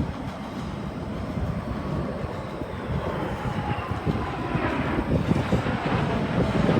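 Jet noise of a USAF B-2 Spirit bomber's four turbofan engines, a broad rushing roar that grows steadily louder as the aircraft approaches, with a faint whine sliding slowly down in pitch.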